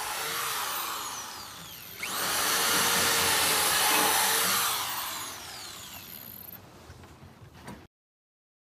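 Corded electric drill boring bolt holes through a wheel chock into the wooden trailer deck. A first run, then at about two seconds the motor spins up louder, holds, and winds down with a falling whine past the middle.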